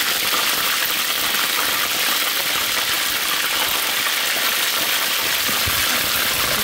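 Chicken wings frying in hot oil: a steady, even sizzle.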